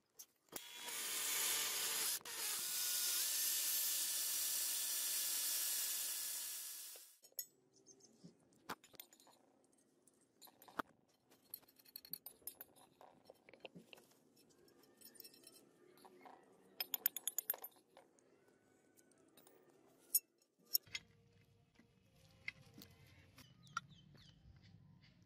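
Electric drill boring a hole through a brass sword guard, running for about seven seconds with a short break near two seconds in. After it stops, only light scattered clicks and taps of small parts being handled.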